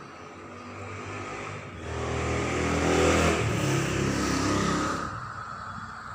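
A motor vehicle engine passing by, its sound swelling over about two seconds, holding briefly, then fading.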